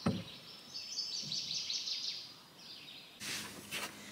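A songbird singing a quick run of repeated high chirps, with a single thump at the very start and a short rush of noise near the end.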